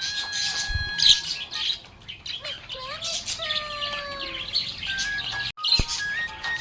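Budgerigar chirping and warbling rapidly, over a background melody of steady, stepping tones. A short break and a click come near the end.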